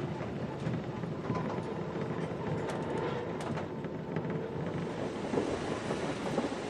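Vintage Belgian vicinal electric tram running along the track: a steady rolling rumble with a faint steady whine in the middle.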